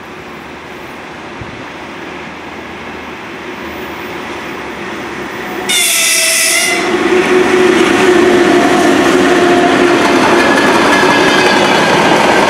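A train approaching, its rumble slowly growing louder. About halfway through, its horn sounds once for about a second as the train suddenly comes close. It then runs past loudly on the rails.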